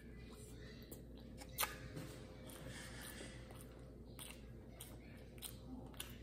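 Chewing a mouthful of sushi roll: soft wet mouth clicks scattered through, the sharpest about a second and a half in.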